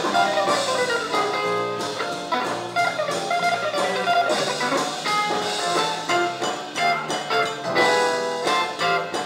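Live rock band music: electric guitar, Korg X5 synthesizer keyboard and drum kit playing together.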